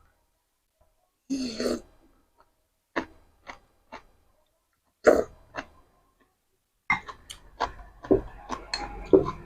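Close-up mukbang eating sounds: a person slurping and chewing seblak with rice vermicelli and crackers, making wet mouth smacks and clicks in short separate bursts that come thick and fast near the end.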